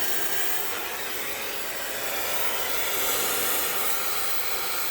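Oxy-acetylene gas welding torch flame hissing steadily.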